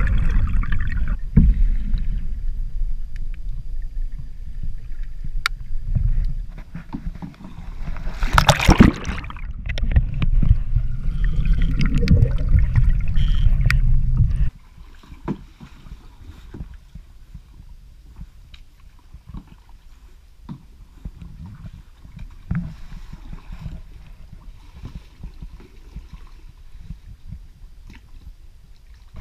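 Muffled water noise heard through a camera held below the surface beside a kayak: a loud low rush, with a sudden splash about eight or nine seconds in. About halfway through it drops abruptly to quieter water sounds with scattered small clicks.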